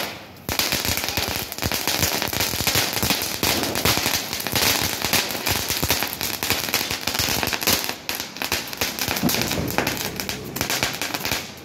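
Small firecrackers bursting in rapid succession, a dense crackle of sharp pops that starts about half a second in and thins briefly twice near the end.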